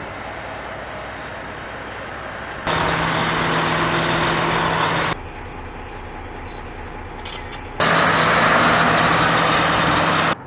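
Western Star dump truck's diesel engine running, a steady low drone with noise over it. The level jumps abruptly: it is louder for about two and a half seconds starting near three seconds in, and again from about eight seconds in until just before the end.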